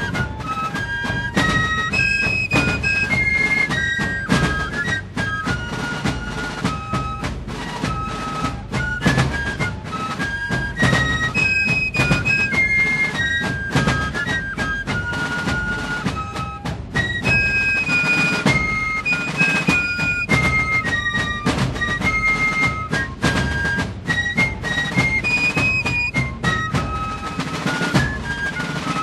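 Background music: a flute melody played over drums and drum rolls.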